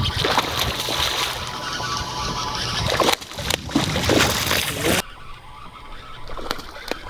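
Hooked largemouth bass thrashing and splashing at the water's surface while being reeled in, the splashing stopping suddenly about five seconds in.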